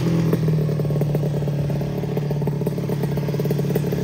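Drag-racing motorcycle engine idling with a rapid, uneven pulse. Its pitch dips slightly in the first half-second as the bike rolls to a stop, then holds steady.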